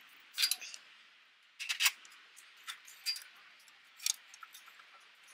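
Metal hand tools clinking and clicking against the bolts of a Honda Accord's exhaust header as it is being unbolted: a handful of irregular sharp clinks, the loudest about half a second in and near two seconds in, with lighter ticks after.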